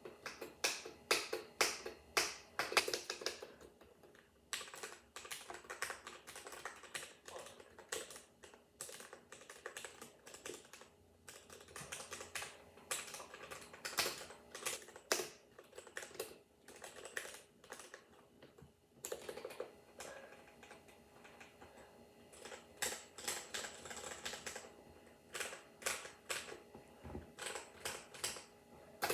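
Ducky mechanical keyboard with Cherry MX Red switches being typed on: quick runs of key clicks, spacebar presses among them, broken by brief pauses.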